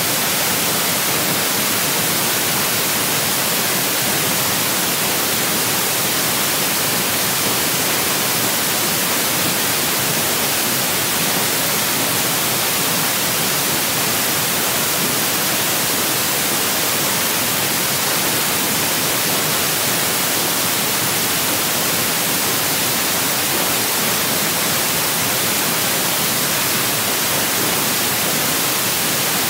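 Steady, loud hiss of static, even and unbroken, like a noisy microphone input on a screen recording.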